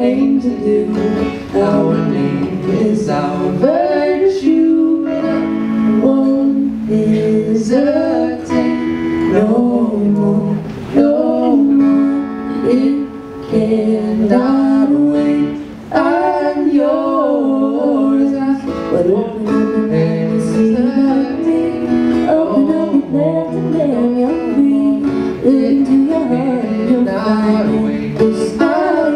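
A woman singing a song to acoustic guitar accompaniment, played live by a guitar-and-voice duo.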